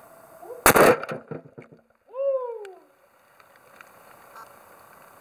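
A single loud bang as a 5 Ah 21700 lithium-ion cell bursts in thermal runaway, blowing off its top cap, with a brief dying rumble after it. About a second later comes a short rising-then-falling exclamation.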